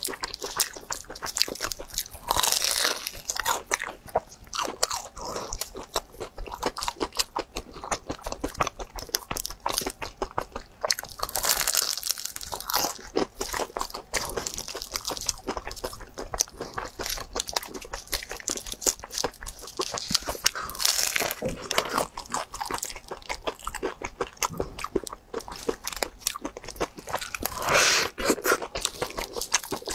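Bites into a deep-fried purple sticky-rice bun with a runny filling, the fried pastry crust crunching, then chewing of the soft rice. A few louder crunchy bites come at intervals among steady chewing.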